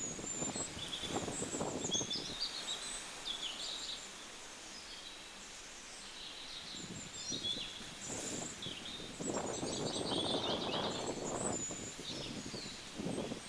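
Birds chirping with many short, high calls over a low outdoor background noise. The background noise swells near the start and again about halfway through.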